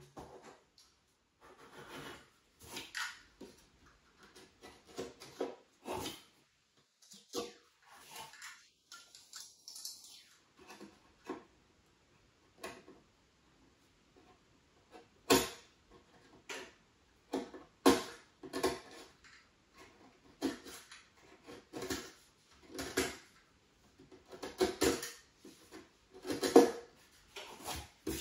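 Irregular knocks, taps and scrapes of hands and tools against the wooden bottom panel of a bathroom vanity cabinet while it is marked out. A few sharper knocks come in the second half.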